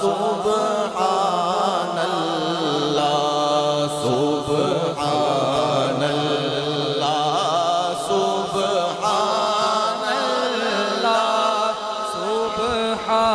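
A man chanting a naat in long, drawn-out melodic lines, each note held and bending in pitch, over a steady low hum.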